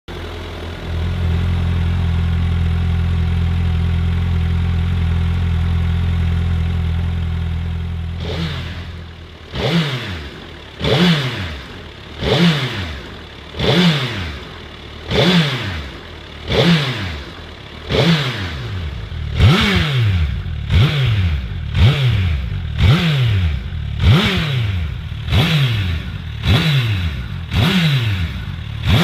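2021 Suzuki Hayabusa's 1,340 cc inline-four idling steadily. After about eight seconds it is revved in neutral in short throttle blips, about one every second and a half, each rising sharply in pitch and dropping back to idle. There are around fourteen blips in all, growing a little stronger toward the end.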